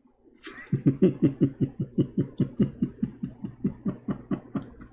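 A man laughing, a long rapid run of pulsed 'ha-ha-ha' of about six beats a second that starts with a breathy burst and tails off near the end.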